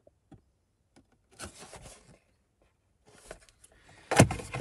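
Cardboard parts box handled and slid back into an open car glove box: a few light clicks and a short rustle, then louder knocks and clatter near the end as it goes in.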